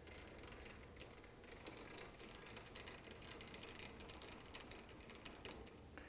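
Faint, irregular clicking and rattling of a lathe's cross-slide handwheel and feed screw being cranked by hand, moving the cross slide along its ways.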